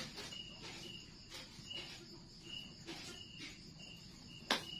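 Crickets chirping in short high chirps, about two a second, over a steady faint hiss. A few sharp clicks and cracks come through, the loudest near the end.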